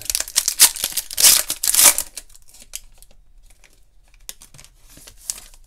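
Foil wrapper of a Panini Certified trading-card pack being torn open and crinkled by hand: loud tearing and rustling for the first two seconds, then quieter scattered crinkles as the wrapper is peeled off the cards.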